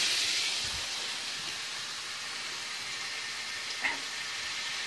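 Bacon sizzling in a frying pan with a steady hiss, slightly louder at first just after a strip is tossed in, then settling. A faint click near the end.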